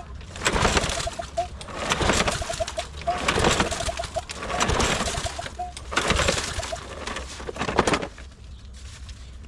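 Troy-Bilt lawn mower's recoil starter pulled about six times in a row, each pull a short noisy surge of the engine cranking over without catching. The engine will not start: hard starting, which the owner puts down to gunk in the carburetor. The pulling stops about eight seconds in.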